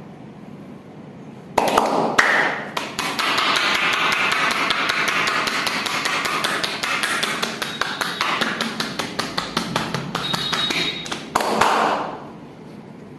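Massage hands striking the body in quick rhythmic percussion strokes (tapotement), several loud slaps or chops a second. The strikes start about a second and a half in and stop shortly before the end.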